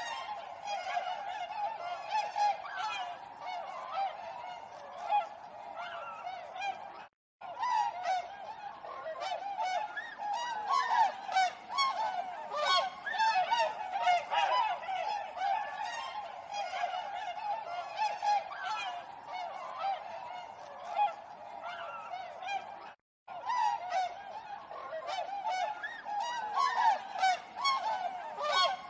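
A flock of swans honking, many short calls overlapping without pause. The sound cuts out completely for a moment twice, about seven seconds in and again about twenty-three seconds in.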